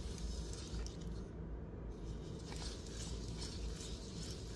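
EMO desktop robot moving on its charging dock: faint small-motor whirring over a low hum, with a few light clicks and taps from its feet and body.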